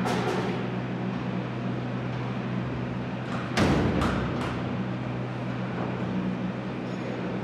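Workshop noise: a steady low machine hum with a few sharp knocks, the loudest a quick run of three about three and a half seconds in.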